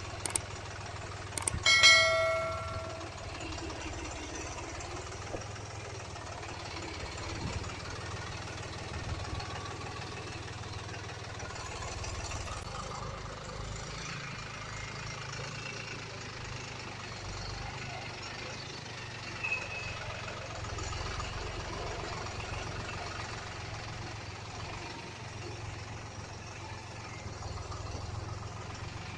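Excavator's diesel engine running steadily, with one ringing metallic clang about two seconds in.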